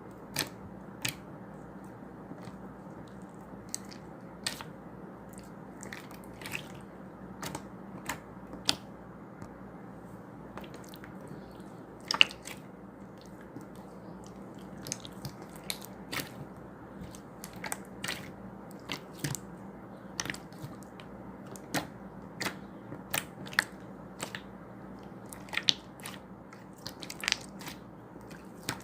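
Crisp, irregular crunches of something hard being bitten and chewed, about one or two a second, over a steady low hum.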